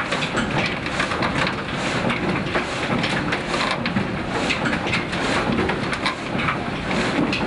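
Old mill machinery running, its iron gearing turning with a steady, dense clatter over a continuous hiss.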